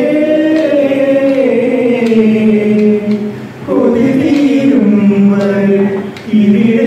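A man singing solo into a handheld microphone, holding long, slowly gliding notes. He pauses briefly for breath about halfway through and again near the end.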